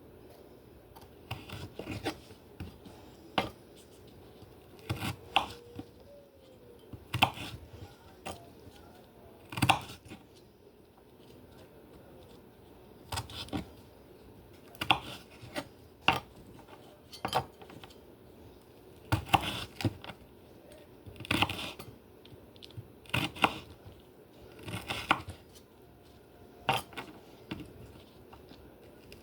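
Food preparation by hand: a series of sharp knocks and rustles at irregular intervals of about one to two seconds, the sounds of kitchen work at a counter such as cutting or handling salad ingredients.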